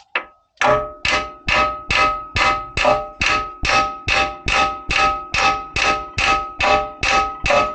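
Hammer blows on the steel suspension, about seventeen evenly spaced strikes at a little over two a second, each one ringing metallically, to drive a seized ball joint loose from the knuckle of a Range Rover L322.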